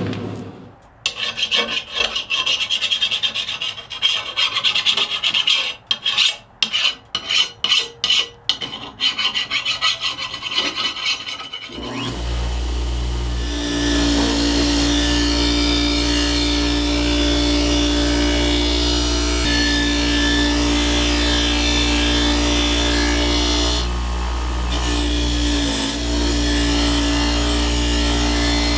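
Steel knife blade being abraded: about ten seconds of stop-start rasping strokes, then a power grinder runs steadily with a low hum and a grinding hiss, briefly easing twice near the end.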